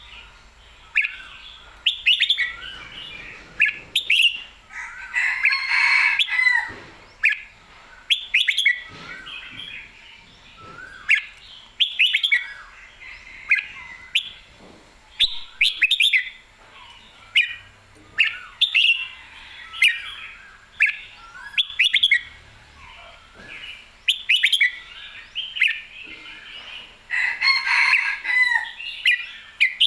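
Red-whiskered bulbul in full, spirited song: short, clear, warbling phrases repeated every second or two, with busier runs of song about five seconds in and again near the end.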